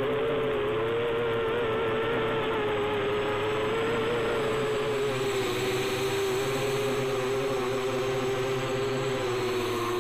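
Quadcopter's electric motors and propellers whirring in flight: a steady buzzing hum whose pitch wavers slightly as the throttle shifts.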